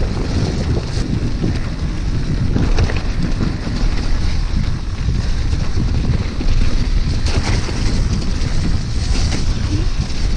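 Wind rumbling over a handlebar-mounted action camera's microphone as a mountain bike rolls down a wet, muddy trail, mixed with tyre noise and a few faint knocks from the bike.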